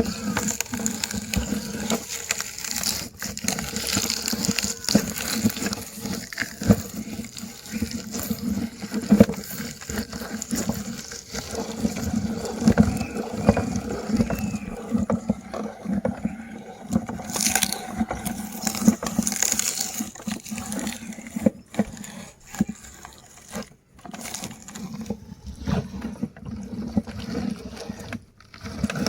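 Meat grinder crushing mini chocolate candies: a steady low hum under many short, irregular crackles and crunches as the candy is broken up and forced through.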